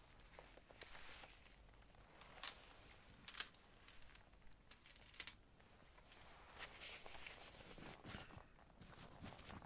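Faint handling of rune stones: a few sharp clicks and light rustling.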